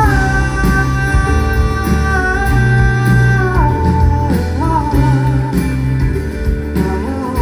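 Live band music with a male lead vocal holding one long note over guitar and bass. The note steps down in pitch about halfway through and wavers.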